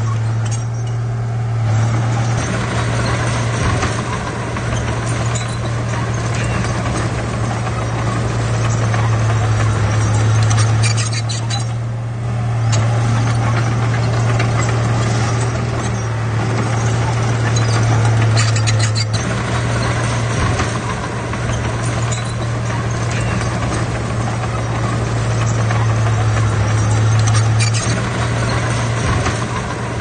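Komatsu D31P crawler bulldozer's diesel engine running steadily with a constant low hum, along with a continuous mechanical clatter.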